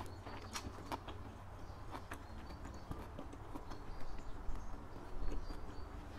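Close-miked chewing with the mouth closed: irregular wet mouth clicks and smacks, a little louder about four to five seconds in.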